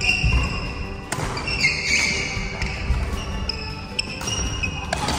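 Background music over badminton play, with a few sharp racket hits and short shoe squeaks on the court.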